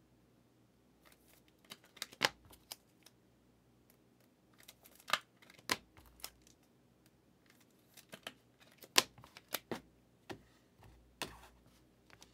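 Trading cards and their packs being handled: scattered sharp clicks, snaps and short scrapes in irregular clusters.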